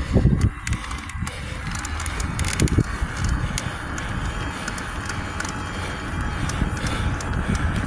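Bicycle being ridden: a steady rushing hiss of tyres and air with a low rumble, broken by many sharp scattered clicks from the bike and the handheld camera.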